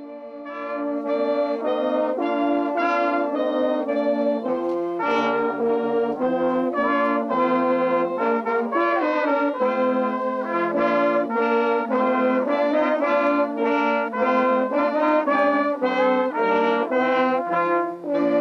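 Brass band playing, several brass instruments sounding together in harmony. It starts just as the talk ends and swells to full volume within the first second or two.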